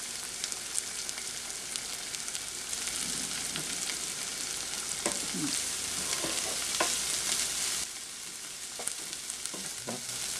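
Chopped onion flowers and grated coconut sizzling in a frying pan as they are stirred and scraped with a wooden spatula, with small clicks of the spatula against the pan. The sizzle eases a little about eight seconds in.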